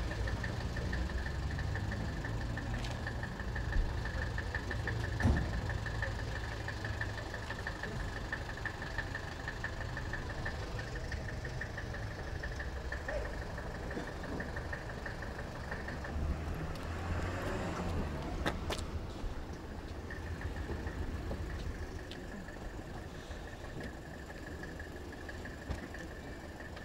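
A vehicle engine idling steadily with a low rumble and a steady high-pitched whine. The whine drops out for a few seconds about two-thirds of the way through. Two sharp knocks come through, one early and one later.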